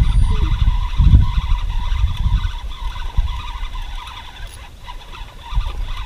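Wind buffeting the microphone in gusts: an uneven low rumble, strongest in the first couple of seconds, easing off in the middle and picking up again near the end.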